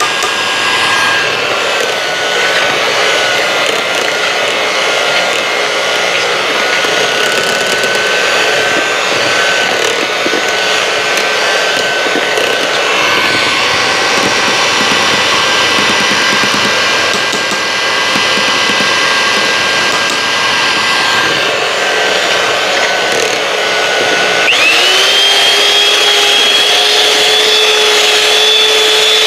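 Electric hand mixer running, its beaters churning mashed potato in a stainless steel pot: a steady motor whine over the scraping of the beaters, which jumps to a higher, louder whine about 24 seconds in as the motor speeds up.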